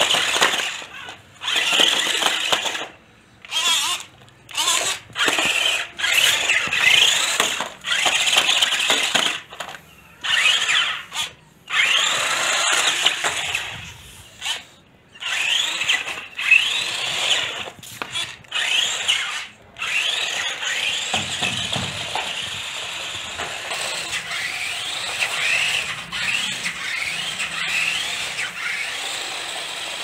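Electric drive motors and gearboxes of a 1:16 four-wheel-drive twin-sided stunt RC car whining in short bursts as it is driven, the pitch rising and falling with each burst. From about twenty seconds in it runs more continuously.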